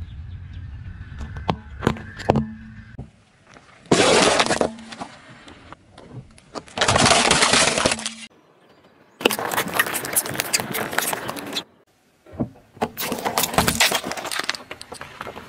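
Car tyre rolling slowly over objects on asphalt and crushing them. A low rumble with a few sharp clicks comes first, then four separate bursts of crunching and cracking plastic, each one to two and a half seconds long, with abrupt cuts between them.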